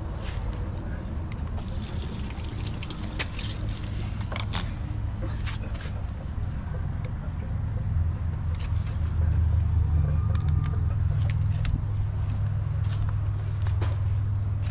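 A vehicle engine running, a low steady rumble that grows louder about nine seconds in, with scattered clicks and knocks over it.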